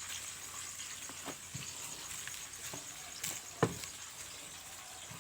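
Faint, scattered soft clicks and taps of a meal being eaten by hand, with one sharper tap a little past the middle, over a steady high insect trill.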